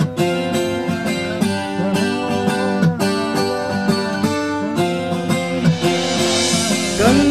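Music: a plucked, guitar-like string instrument plays a melody of short notes, some bent in pitch. A hissing swell rises near the end.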